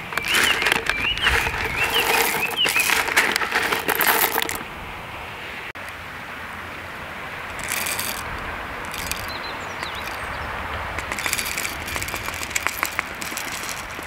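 Coffee beans are scooped out of a crinkly foil-lined bag, rattling and rustling for about four and a half seconds. After that come a few short clicks and scrapes as a hand coffee grinder is handled and its crank handle fitted.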